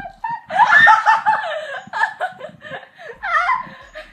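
Girls laughing in quick, high-pitched bursts, loudest about half a second to a second and a half in, with another burst of laughter near the end.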